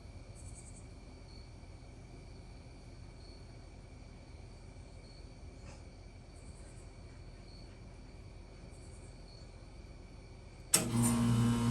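Crickets chirping faintly, then near the end a 1993 Comfort-Aire window heat pump starts up in heat mode: a sharp click, then a loud, steady hum as the unit comes on.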